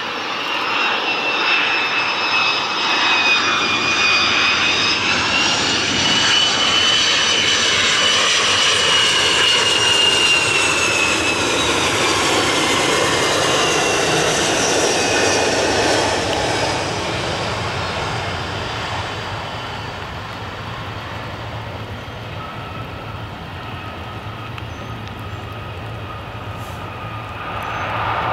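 A Boeing 727-200's three Pratt & Whitney JT8D turbofans pass low on landing approach: a loud jet roar with a high whine that bends in pitch as the plane goes by. The sound fades after about sixteen seconds, then rises again near the end as the engines go to reverse thrust on the wet runway.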